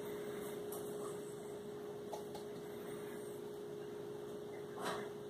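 Quiet room tone with a steady low hum, and a couple of faint ticks about two seconds in.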